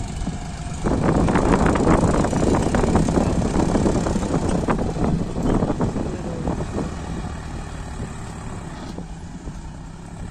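John Deere tractor's diesel engine working hard to pull a heavily loaded trolley of soil over soft ploughed ground, passing close. It gets suddenly louder about a second in, then fades as the tractor moves away.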